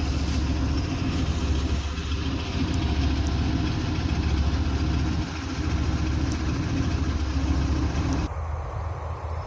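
Combine harvester's diesel engine running steadily. Near the end the sound turns abruptly duller.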